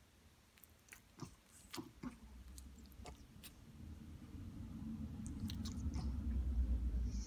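Pregnant French bulldog's mouth making a series of small wet clicks and smacks, as in chewing or licking, over the first few seconds. A low rumble then builds up and is loudest near the end.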